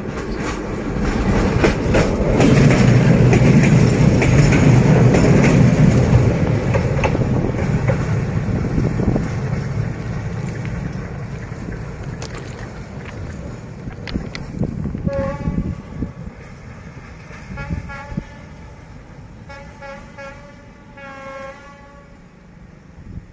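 D11H diesel-hydraulic locomotive, hauling a second D11H, passing close: its engine and wheels on the rails swell to a loud rumble within a few seconds, then fade away over the next several. Later its horn sounds, one short blast about 15 seconds in and a few more near the end.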